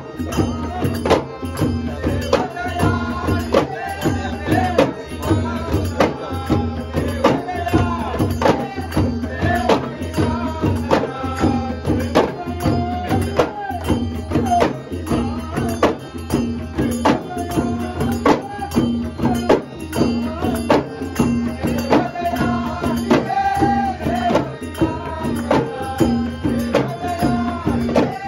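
Ghumat clay-pot drums beaten in a steady, even rhythm, with an elderly man singing a Konkan Shimga folk song in a strong voice over a held harmonium tone.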